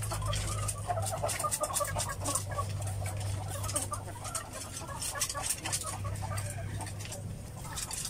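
A shed full of caged upgraded native laying hens clucking and chattering, with many short sharp clicks and taps mixed in.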